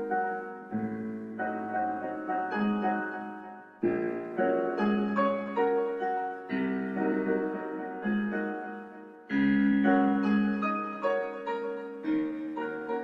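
Background piano music: soft sustained chords under a slow melody, with a new phrase starting about four seconds in and another about nine seconds in.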